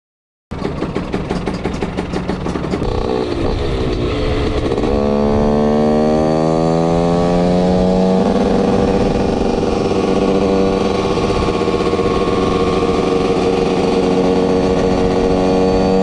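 TM SMR 125 fuel-injected two-stroke single-cylinder supermoto engine pulling hard under way. It starts about half a second in with quick even pulses, its note climbs for several seconds, changes about eight seconds in, then is held high and steady.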